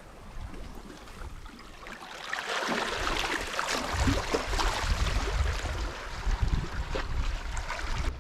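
Wind gusting on the microphone over sea water washing, swelling louder about two seconds in, with scattered small clicks.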